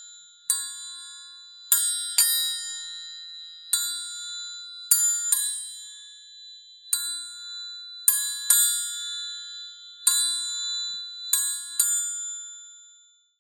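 Orchestral triangle struck again and again, about eleven strikes, often in quick pairs, each ringing on with a bright high shimmer that fades between strokes; the last strike rings out and dies away near the end.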